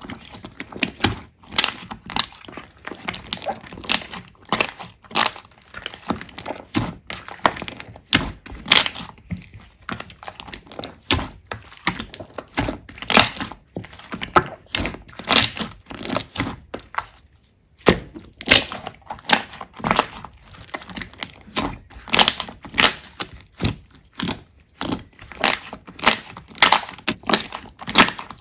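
Slime being squeezed and pressed by hand, giving a dense run of sharp crackles and pops with louder snaps every second or so. The crackling stops briefly about two-thirds of the way through.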